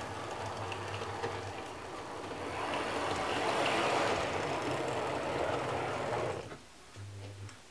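Fleischmann H0 model ICE train running past on its track, a rattling whir of small wheels and motor that grows louder as it comes close, then drops away sharply about six and a half seconds in.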